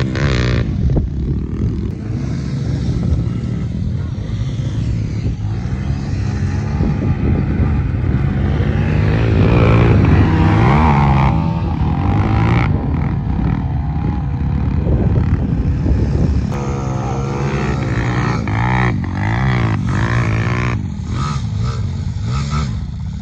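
Dirt bike engines revving and running hard through loose sand, the pitch rising and falling with the throttle; loudest about ten seconds in.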